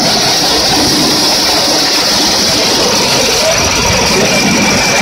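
Motorcycle engine running steadily as the bike rides along a railway track, with a steady hiss over it.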